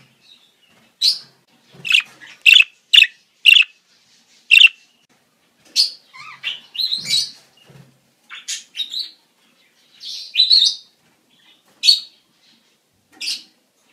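Small birds chirping: short, high calls about every second, some in quick runs of two or three, with silence between them.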